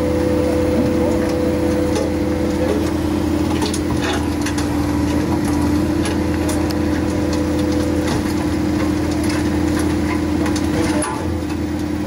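Komatsu skid steer's diesel engine running steadily under hydraulic load while the rotating screening bucket's drum turns, with scattered clicks and rattles of stones tumbling in the drum. A higher steady tone drops out about three seconds in.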